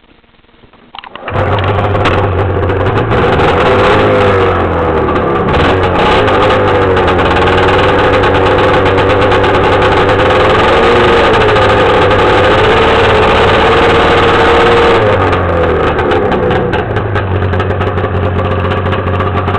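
1994 Arctic Cat Wildcat 700 EFI two-stroke snowmobile engine starting about a second in, then idling loudly with a slightly wavering note.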